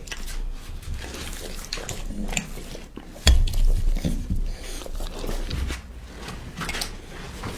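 A puppy chewing its food: irregular clicks and crunches of teeth, with one heavier knock about three seconds in.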